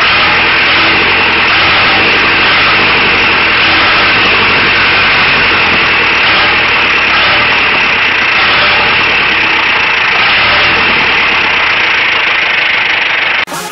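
Swapped-in Zetor four-cylinder diesel engine with 102 mm pistons in an Ursus C-355 tractor, running steadily, heard close to its vertical exhaust stack. Music cuts in right at the end.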